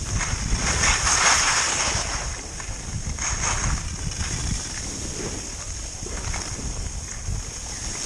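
Skis sliding and carving on packed snow, the edges scraping in hissing surges with the turns, strongest about a second in and again around three and a half seconds, over wind buffeting the microphone.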